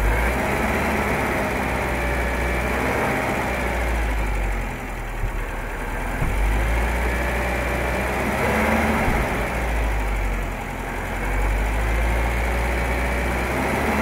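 1971 Citroën DS 21's four-cylinder engine idling steadily, heard close up in the open engine bay.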